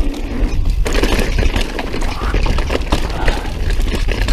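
Mountain bike rolling fast down a trail: tyre noise and the bike rattling and clattering over rough ground, dense from about a second in, with a steady rumble of wind on the microphone.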